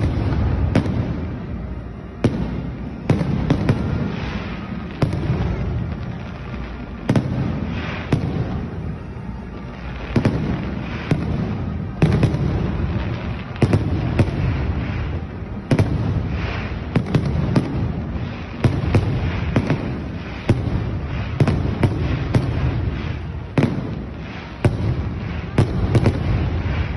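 Aerial fireworks display: dozens of shell bursts banging at irregular intervals, often one to two a second, with low rumbling in between.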